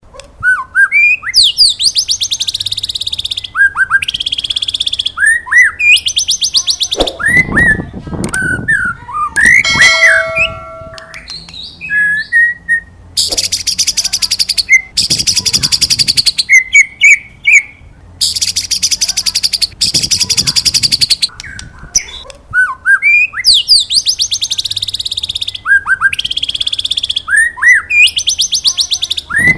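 White-rumped shama (murai batu) singing in its 'wit wit cerrr' style: short rising 'wit wit' whistles, each followed by a long, fast, high buzzing 'cerrr' trill. The phrase repeats every couple of seconds, with a break of scattered lower notes about a third of the way through.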